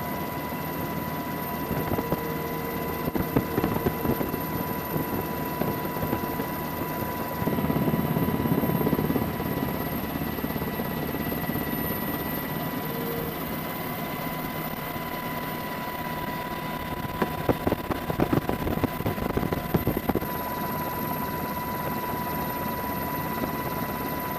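Helicopter running: a steady rotor chop with a constant high-pitched whine, swelling louder twice, about eight and eighteen seconds in.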